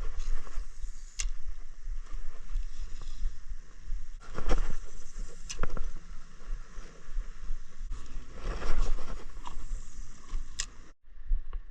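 Low rumble aboard a small fishing boat, with a few sharp knocks and a rustling, scraping patch of handling noise partway through.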